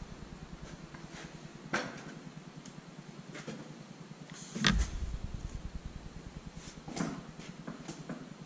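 A few sharp knocks and clinks of hand tools and parts under the hood of a pickup truck, the loudest with a dull thud about halfway through.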